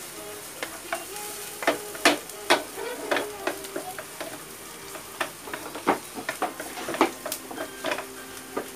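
Wooden spatula scraping and knocking against a nonstick frying pan as food is stirred, in irregular strokes over a steady sizzle of frying.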